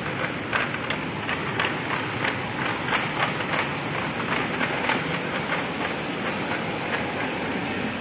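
Walking across a tiled supermarket floor: quick regular clicks, about three a second, that fade out after five seconds or so, over a steady background hiss.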